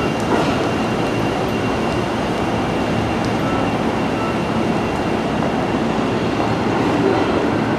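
Electric train pulling out of a station platform and moving away, a steady rumble of running noise with a thin steady high tone above it.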